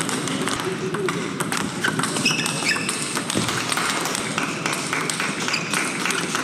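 Table tennis hall sounds: the plastic ball clicking off bats and tables, irregular and overlapping from this and neighbouring tables, over a steady hum of hall noise.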